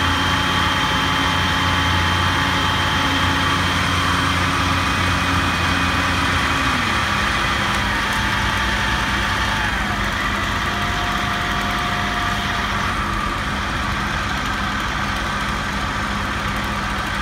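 Heavy equipment engine running steadily at the job site; its pitch drops about seven seconds in as the engine slows.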